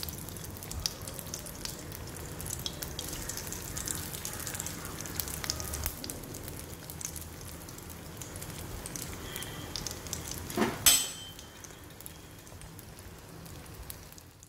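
Potato croquettes coated in powdered poha deep-frying in hot oil in a kadai: a steady sizzle with many small crackling pops. One louder, sharp crackle comes about eleven seconds in.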